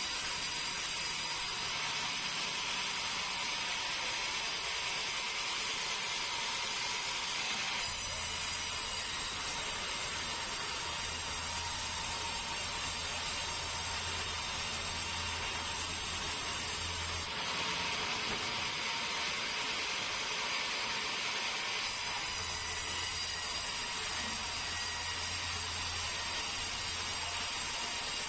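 Sawmill saw cutting a keruing log, a steady machine noise with no pauses. Its sound changes back and forth between a hissier phase and one with a low hum, twice in the stretch.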